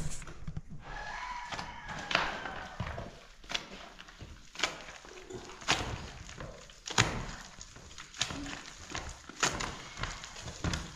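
Wet mortar being worked by hand and with a steel trowel in a plastic basin: irregular knocks and scrapes, about one a second.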